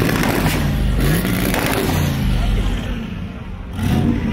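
Lowered square-body Chevrolet pickup's engine running as the truck rolls slowly past, with voices in the background.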